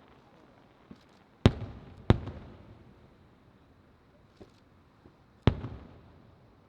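Aerial firework shells bursting in the sky: three loud booms, two about half a second apart a second and a half in and a third near the end, each trailing off in an echoing tail, with a few fainter pops between.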